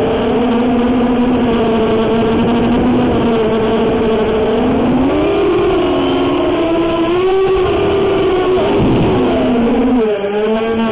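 Quadcopter's brushless motors (ZMX Fusion 2205 2300 kv) whining in flight, several tones sliding up and down together with the throttle. The pitch climbs about five seconds in, then drops near the end.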